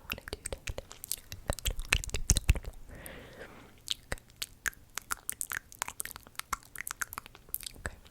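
Close-miked ASMR mouth sounds: a fast, irregular run of wet clicks and smacks, with a few heavier low thumps about two seconds in and a brief soft breathy hiss around three seconds.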